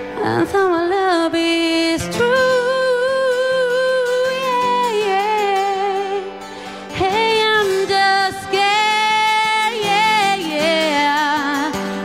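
A woman singing live into a microphone over instrumental accompaniment. She holds long notes, some with a wavering vibrato.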